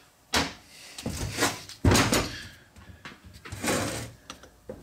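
Irregular clunks and scrapes of metal parts being handled, several in a row with the loudest about two seconds in.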